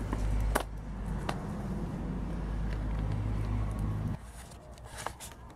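Low, steady engine-like rumble with a few light clicks over it, cutting off suddenly about four seconds in.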